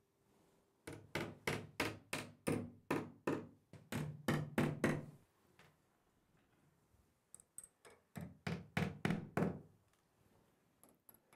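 Hammer tapping wall plugs into drilled holes in the wall: two runs of sharp knocks, about three a second, the first of about a dozen strikes and the second of about seven after a pause near the middle.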